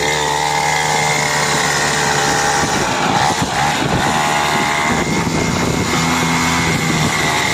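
A 49cc mini dirt bike's small petrol engine running as it is ridden. The note holds steady for about the first three seconds, then becomes uneven, its pitch shifting as the throttle changes.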